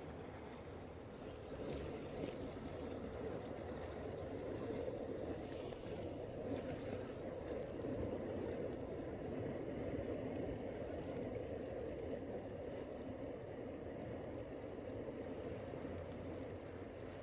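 Steady rushing of a fast mountain river, with a small bird chirping briefly several times over it.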